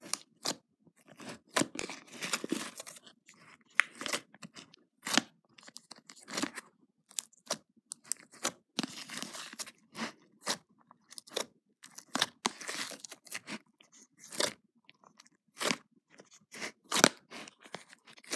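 Fluffy blue slime squished and poked by fingers in a plastic tub, close to the microphone: irregular wet clicks and pops, some running together into short crackling stretches.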